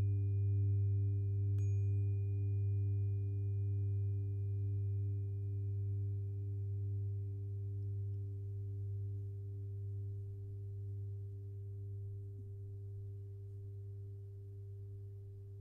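A 396 Hz tuning fork struck once about one and a half seconds in, its faint high overtone ringing and fading away over several seconds. Underneath runs a steady low hum of sine tones, with a slowly wavering ring, and the whole sound gently fades.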